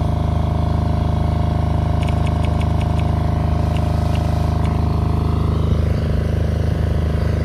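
Steady low engine-like drone with several held low tones, unchanging throughout, and a short run of quick ticks about two seconds in.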